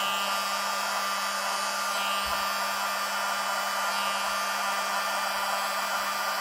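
Hair dryer running steadily close to the surface, an even rush of air over a low hum. It is blowing wet acrylic paint outward across a tile to spread it into a bloom.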